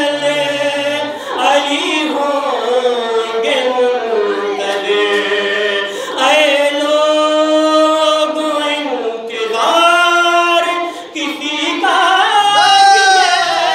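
A man singing verse unaccompanied into a microphone over a hall's PA, in a melodic recitation with long held notes about halfway through.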